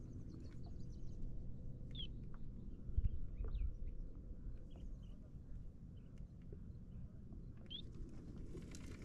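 Birds calling in short, high chirps scattered through, over a steady low rumble; a dull thump about three seconds in is the loudest sound.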